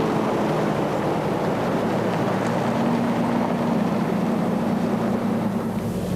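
Four-wheel-drive vehicles driving over desert gravel: a steady engine drone with tyre and road noise.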